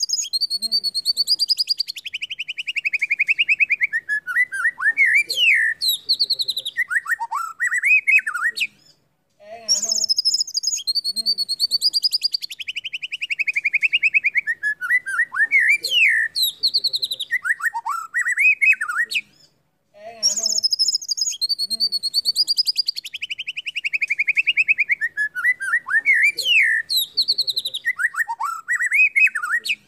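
White-rumped shama (murai batu) song: a phrase of about nine seconds that opens with high notes, runs into a long rapid trill falling in pitch, then ends in varied whistled notes. The same phrase repeats three times with short pauses between.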